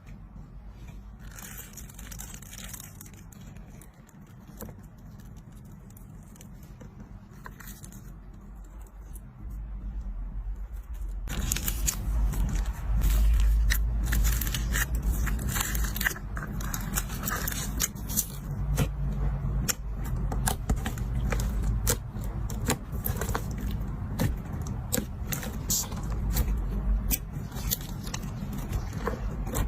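Slime being handled: squishing and poking with scattered wet clicks. About eleven seconds in it turns louder, with a dense run of crackles and clicks over a low rumble.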